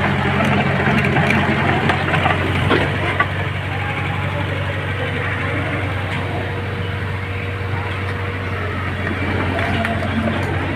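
Engine of road-construction machinery running steadily, a constant low hum.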